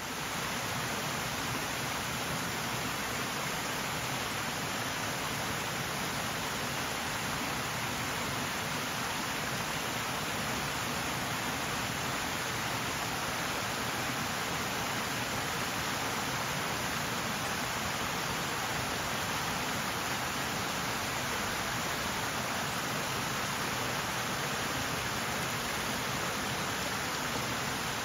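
Rushing water: a steady, dense hiss that does not change.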